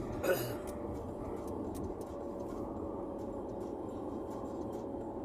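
Steady road and engine noise inside a moving car's cabin, a low rumble with a faint steady hum. A short, sharp sound about a third of a second in is the loudest moment.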